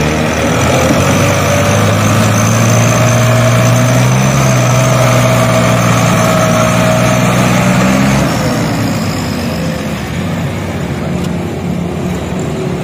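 Farm tractor's diesel engine running steadily as it hauls a heavily loaded sugarcane trolley, a low drone that eases about eight seconds in.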